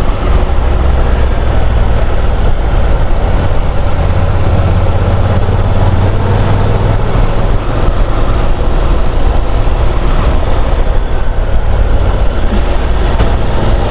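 Honda NC750 motorcycle riding at road speed: steady wind rush over the microphone with the parallel-twin engine running underneath.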